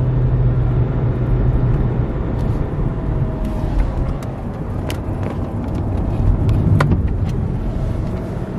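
Road and engine noise inside a moving car's cabin: a steady low hum, with a few sharp clicks in the second half.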